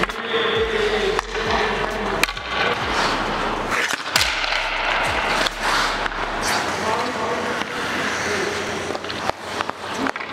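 Ice hockey skates scraping and carving on the ice, with sticks and puck clacking in a scramble in front of the net: several sharp knocks over a steady scraping noise.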